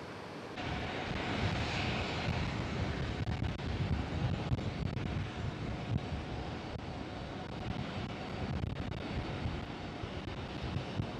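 Boeing 777-300 airliner's jet engines, a steady roar over a deep rumble as the plane slows along the runway after landing. It starts abruptly about half a second in.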